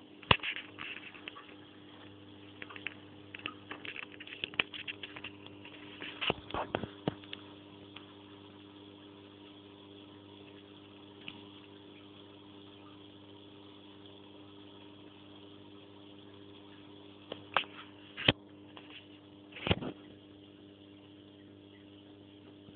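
Aquarium equipment humming steadily, with faint water sounds. Scattered clicks and knocks come through the first few seconds, then two sharper knocks about three-quarters through.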